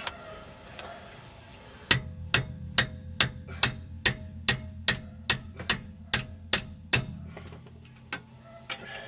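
Wrench turning a hub bolt behind a Jeep Grand Cherokee ZJ front hub: about a dozen sharp metallic clicks, evenly spaced at a little over two a second. They start about two seconds in and stop about seven seconds in.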